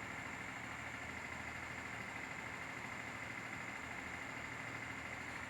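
A steady, unchanging hum with a high whine over a low drone and light hiss, like a motor or machine running.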